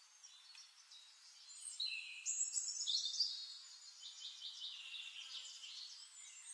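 Faint high-pitched chirping and twittering of birds and insects, thin with no low sound at all, getting busier about two seconds in.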